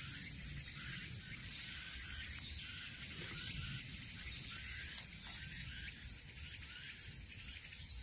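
A chorus of many cicadas singing at once: a dense, steady high-pitched buzz.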